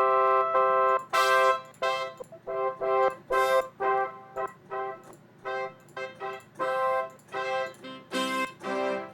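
Synthesized brass-section patch on a Yamaha Montage M keyboard, played as a string of short chord stabs, about a dozen of them, with lower notes joining near the end.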